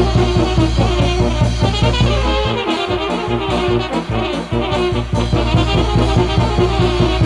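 Serbian brass band playing a kolo: trumpets and tenor horns carry the tune over tuba and drum on a fast, steady beat. The low bass drops out for about two seconds mid-way, then comes back in.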